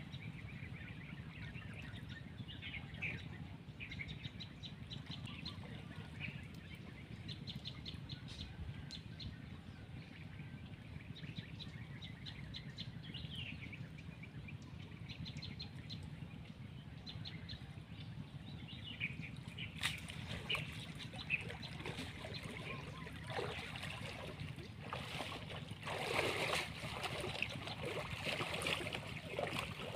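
Birds chirping over a low steady rumble. From about two-thirds of the way through, water splashing and dripping grows louder as a wet cast net is gathered and lifted out of a shallow pond.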